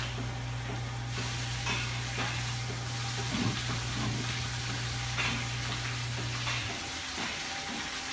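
A steady low machine hum over a constant hissing noise, with a few faint ticks; the hum cuts off near the end.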